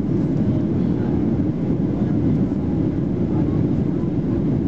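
Steady low rumble of cabin noise inside a Boeing 737-800 in flight: airflow and the CFM56-7B turbofans heard through the fuselage, even throughout.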